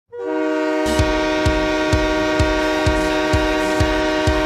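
Hockey goal horn sounding one long, steady chord of several tones. About a second in, a goal song's drum beat joins underneath, about two kicks a second.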